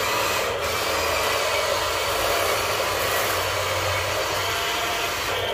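Toy RC excavator's small electric motors and gears whirring steadily.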